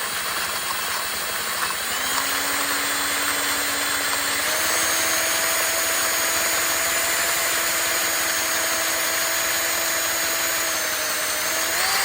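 Power drill running with a 3/4-inch bit, boring a hole through thin plastic. Its motor pitch steps up about two seconds in and again about four and a half seconds in, then the drill winds down and stops at the very end.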